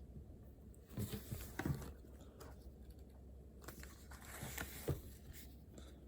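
Rustling and light knocks of things being handled at a desk, in two short spells: one about a second in, one near the middle.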